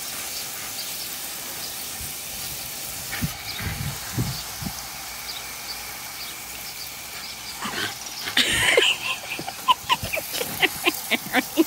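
Garden hose spray hissing steadily onto plants and rocks. From about eight seconds in, a dog biting and gulping at the spray in quick wet snaps, several a second.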